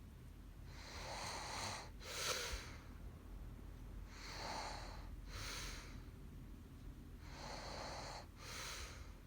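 A woman snoring in her sleep: a longer noisy breath followed by a shorter one, repeating about every three seconds, three times.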